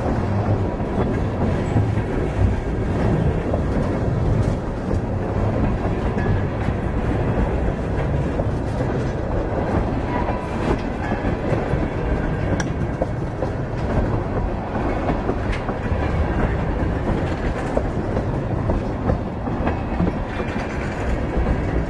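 A train rolling past: a steady low rumble of steel wheels on rail, with scattered faint clicks and brief light squeals.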